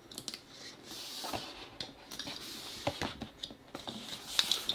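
A small knife cutting through the tape seals on a cardboard box lid: faint scraping and scratching broken by a few small clicks.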